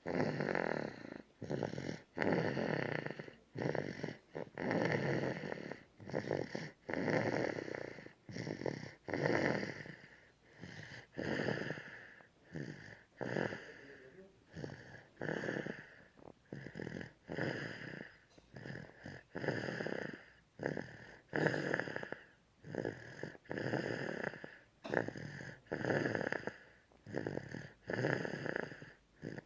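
A person snoring, about one snore a second, some snores louder than others.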